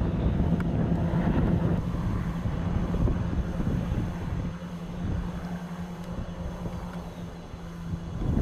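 Two Aerocopter AK1-3 light piston helicopters in flight: a steady engine-and-rotor drone that grows fainter as they fly away, with wind rumbling on the microphone in the first couple of seconds.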